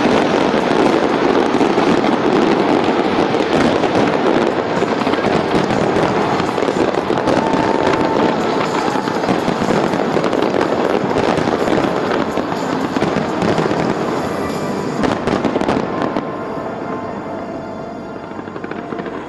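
Large fireworks display: dense, continuous crackling and popping of many shells bursting at once. The barrage thins and quietens about sixteen seconds in.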